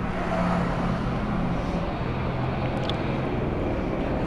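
Steady motor vehicle engine noise over a constant rumble of road traffic, with a low engine hum that fades about a second and a half in.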